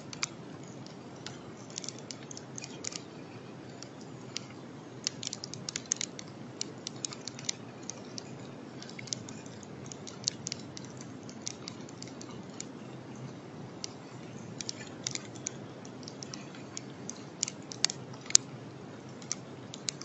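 Irregular sharp ticks and clicks, several a second, over the steady hiss of an outdoor camera's microphone, with one louder click near the end.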